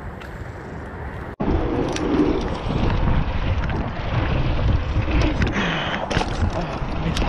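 Wind buffeting an action camera's microphone while a mountain bike rolls over hard-packed dirt jumps, with tyre rumble and sharp rattles and knocks from the bike. The rush is quieter for about the first second and a half, then jumps louder as the riding footage begins.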